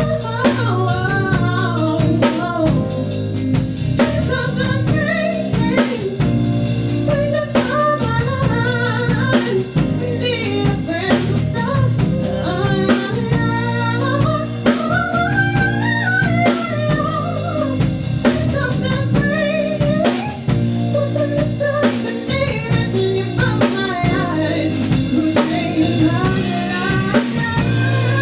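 A live band playing with drum kit, snare and bass, under a bending, blues-inflected lead melody line.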